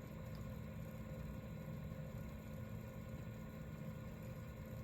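Steady low electrical hum with faint hiss and no music: the background noise of the audio playback chain while the cassette deck outputs nothing yet.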